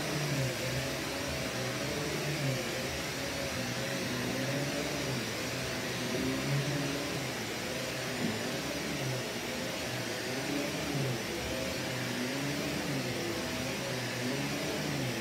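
Vax Commercial VCU-03C upright bagged vacuum cleaner running steadily while being pushed back and forth over carpet, its motor pitch wavering slightly up and down with the strokes.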